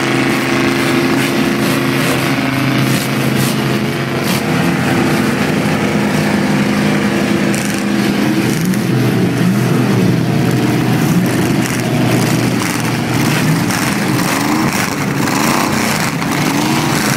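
Rat rod engines running loudly and steadily, then revving up and down over and over in the second half.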